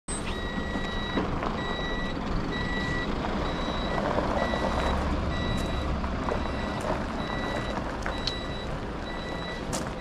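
Tour coach reversing: its backup alarm beeps steadily, about three beeps every two seconds, over the low idle of the diesel engine.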